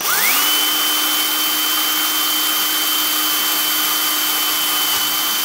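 Cordless drill spinning up quickly, then running at a steady high-pitched whine as a thin bit drills through a model locomotive's plastic gearbox housing.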